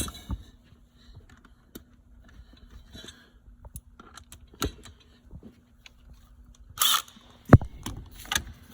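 Hand tools being handled: scattered light metallic clicks and clinks as a socket is swapped onto a ratchet, with a short rasp near the end and one sharp knock just after it.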